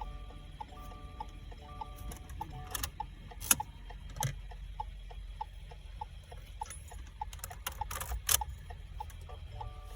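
Car hazard-light flasher ticking steadily, about two to three ticks a second, while the key is programmed. An electronic beeping pattern repeats in the first two seconds, and a few sharp handling clicks break in.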